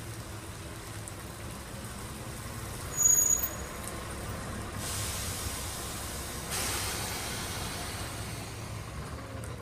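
A vehicle running with a steady low hum. About three seconds in there is a brief loud high-pitched squeal, and later two spells of hiss.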